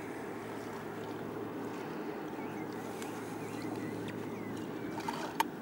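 Steady riverside background: a wash of water noise with a faint low hum under it that fades out shortly before the end, and a sharp click near the end.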